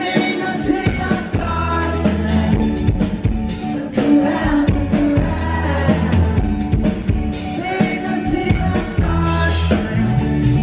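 Live band performing: a male lead singer sings into a microphone over guitar, strong bass and a steady beat.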